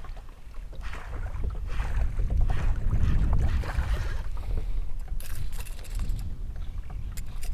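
A baitcasting reel being cranked as a loud propeller topwater lure is retrieved across the water, its prop giving short scratchy splutters, over a low rumble of wind on the microphone.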